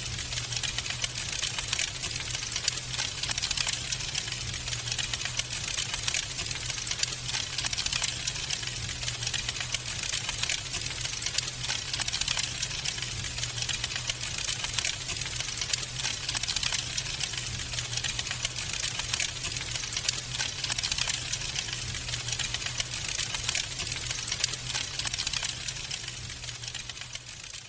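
Wood fire in a fireplace crackling: a dense stream of small rapid pops and snaps, a few louder ones among them, over a steady low hum. It fades slightly near the end.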